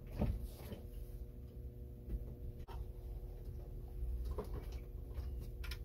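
Quiet room tone: a faint steady hum and low rumble, with a few soft clicks and knocks.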